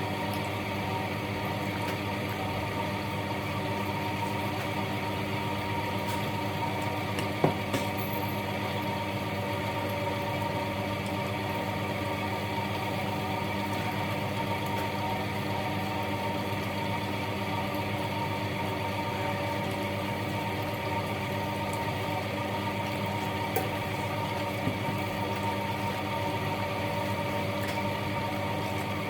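A steady, unchanging mechanical hum, with a few brief clicks.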